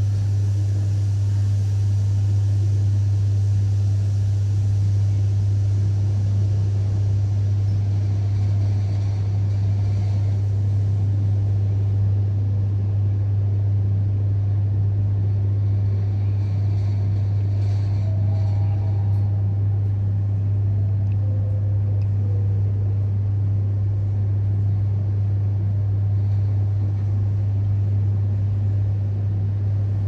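Mitsubishi high-rise lift car travelling in its shaft: a steady low rumble and rush with a constant deep hum, unchanging the whole time.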